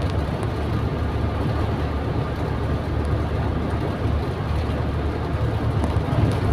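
Cabin noise of a 1987 Toyota Kijang Super cruising at a steady light throttle, about 60 km/h on a level road: a steady engine and road rumble, strongest in the low end.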